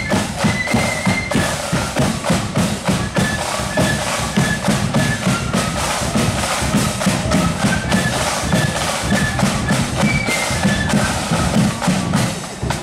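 Marching flute band playing a tune: a high flute melody over a steady beat of snare and bass drums.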